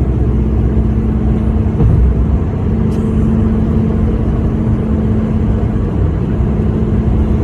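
Steady low rumble of a car driving, heard from inside the cabin, with a constant low hum over it.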